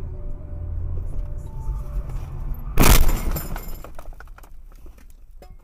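Car driving with a steady low road rumble, then about three seconds in a loud crash as it runs into the back of a truck, with breaking and shattering crackle that dies away over about a second.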